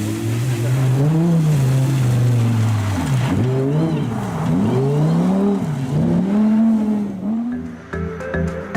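A sports car's engine running at fairly steady revs, then revved up and down about four times in quick succession. Music comes in near the end.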